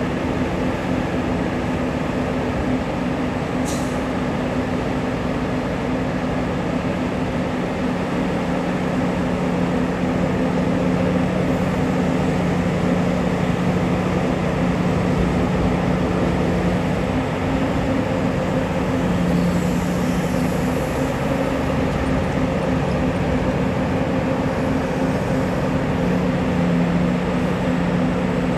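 Diesel engines of heavy mining equipment, a mining excavator loading a dump truck, running steadily with a constant low drone. There is a brief tick about four seconds in.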